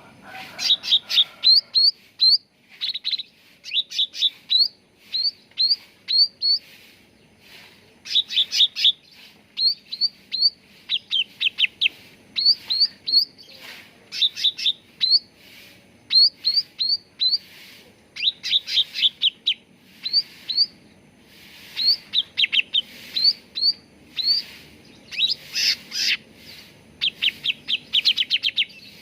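Cucak ranting bird song: quick phrases of short, upward-flicking chirping notes, three to six at a time, repeated again and again with brief gaps between. This is a lure recording meant to set captive birds singing.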